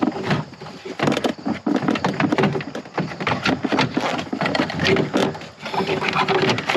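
Hard plastic clicking, knocking and scraping as a pickup's dashboard HVAC control unit and its wiring are worked back into place by hand, in a steady run of irregular knocks.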